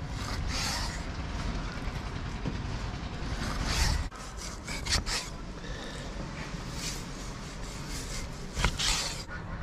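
Steel cleaver slicing raw salmon fillet and knocking down onto a wooden chopping block, with scraping strokes and a few sharp knocks, the loudest near the middle and near the end. A low steady rumble runs underneath.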